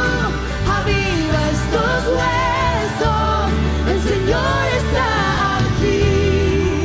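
Live worship band playing a praise song in Spanish: several voices singing over acoustic guitar, keyboard and drums, with cymbal strokes about once a second.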